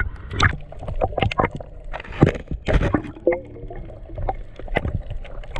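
Choppy water sloshing and splashing around a camera at and just below the surface, with irregular knocks and gurgles as waves wash over it.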